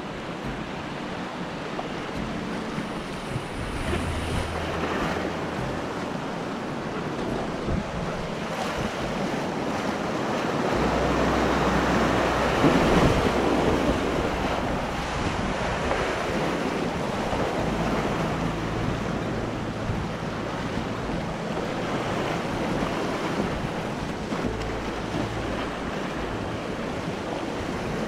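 Whitewater rapid rushing and splashing around a packraft, with wind buffeting the microphone. The rush swells louder about midway as the raft runs the roughest stretch of white water.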